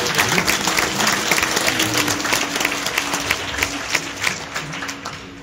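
Large audience applauding, the clapping dying away near the end, with a faint steady held tone underneath.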